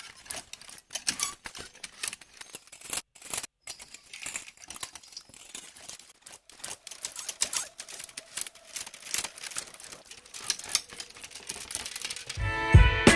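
Metal coat hangers rattling in a wardrobe, a recorded sample played through Logic Pro's Ringshifter frequency-shifter/ring-modulator, turning it into a rapid, irregular metallic clicking and clattering texture. Near the end a louder music passage with plucked guitar and low notes starts.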